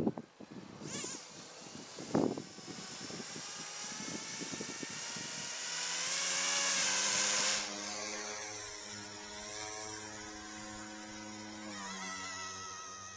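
Eachine E180 direct-drive RC helicopter spooling up on one rotor blade: the electric motor's whine rises in pitch for several seconds and then holds steady. A rushing air noise rides over it until it drops away about seven and a half seconds in, and there is a single knock about two seconds in.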